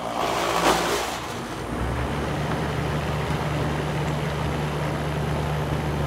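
Air-conditioning condensing unit running: the compressor and condenser fan make a rattly surge in the first second, then settle into a steady hum. The compressor is pumping the refrigerant down into the condenser against the shut liquid line.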